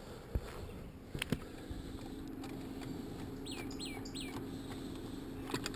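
A bird chirping, about three quick calls around the middle, each sweeping downward. A steady low hum and a few sharp clicks sit beneath it.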